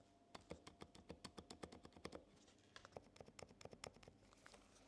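Muted, quiet typing on a NuPhy Halo96 V2 mechanical keyboard: two quick runs of keystrokes, the first about two seconds long and the second about a second, with no rattle or hollow sound.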